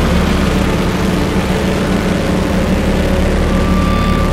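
FPV racing quadcopter's electric motors and propellers buzzing steadily, with a thin whine running through it.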